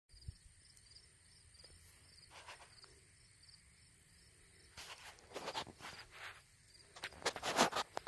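Field insects chirping faintly in a quick, evenly repeating pattern over a steady high trill. From about halfway through, bursts of rustling noise come and go, loudest near the end.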